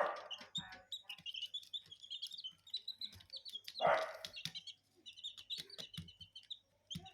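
Chicks peeping continuously in short, high chirps, with one louder, rougher call about four seconds in.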